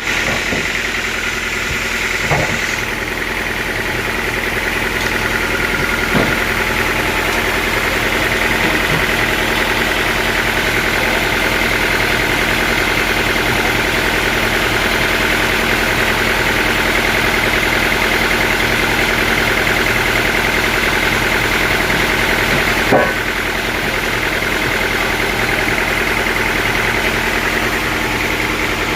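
Sawmill machinery running steadily under engine power, with a constant whine and a few sharp knocks, the loudest about three-quarters of the way through.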